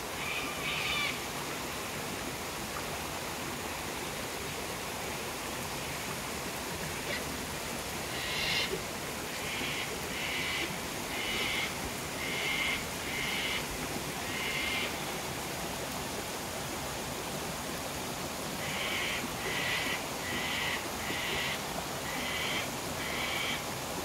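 Cockatoo calling: a short call near the start, then two runs of six or seven harsh calls, a little under a second apart. Under it runs the steady rush of a waterfall.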